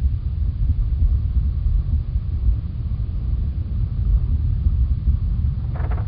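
Strong wind buffeting a microphone: a deep, fluctuating rumble with little hiss above it.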